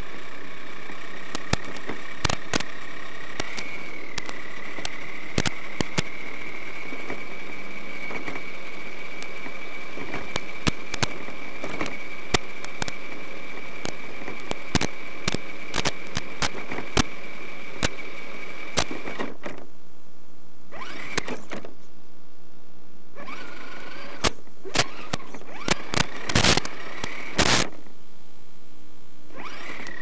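The Axial SCX10 Deadbolt RC crawler's electric motor and drivetrain whine steadily as it drives, picked up by its onboard microphone, with frequent sharp clicks and pops over it. About two-thirds of the way in the whine stops for a few seconds, then starts again.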